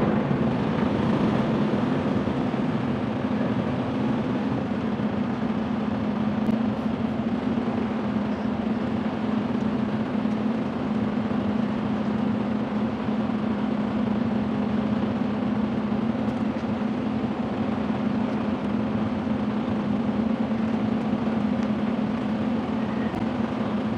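Semi truck's diesel engine running steadily with a constant low hum.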